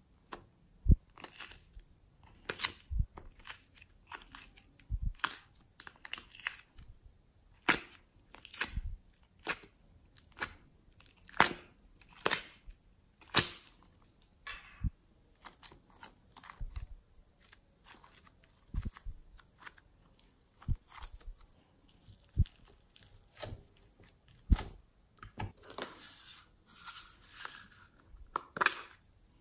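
Soft modelling clay being pulled from a plastic tub and squeezed by hand, giving irregular sharp, sticky clicks and pops, with denser crackling near the end as it is pressed down.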